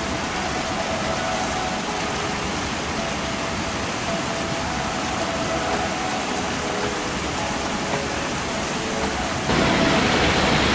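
Spring water running steadily from pipe spouts into a rocky basin. It is a continuous rushing splash that gets a little louder about nine and a half seconds in.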